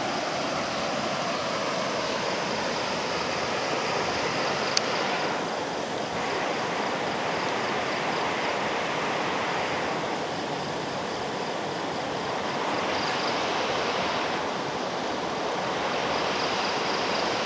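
Steady rush of flowing floodwater, with a faint pulsing high tone above it and one sharp click about five seconds in.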